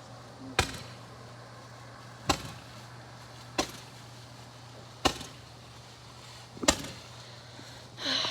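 Firework pops: six sharp bangs about a second and a half apart, over a steady low hum.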